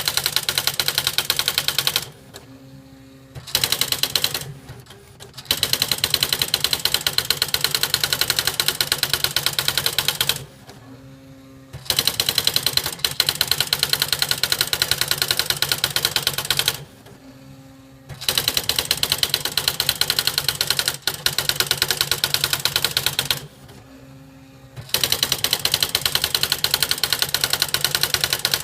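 Smith Corona Display 900 electronic typewriter printing its built-in demo text by itself: a rapid, even stream of character strikes, broken by five short pauses of a second or so between lines. It works like a really slow old-school printer.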